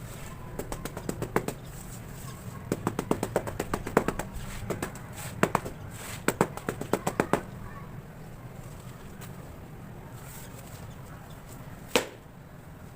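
Quick runs of sharp taps come in several bursts over the first seven seconds, followed by one louder single knock near the end. It is tapping on gritty cement while the cement cakes are being made.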